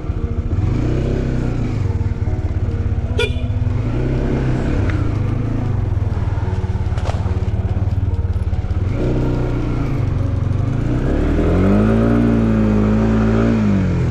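Motorcycle engine running under changing throttle, its pitch rising and falling as it is revved, climbing to its highest near the end before dropping back. Two sharp knocks sound about three and seven seconds in.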